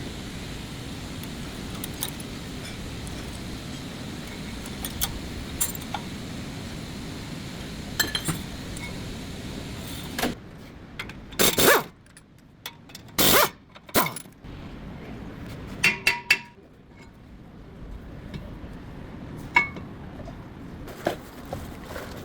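Metal tools and parts clinking and knocking: scattered sharp clicks over a steady background noise, then a run of louder clanks after the background drops away about halfway through.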